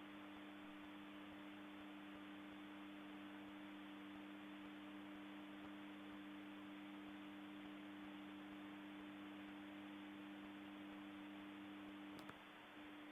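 Near silence: a faint, steady electrical hum of two low tones with light hiss on the cockpit audio feed, broken by a single click about a second before the end.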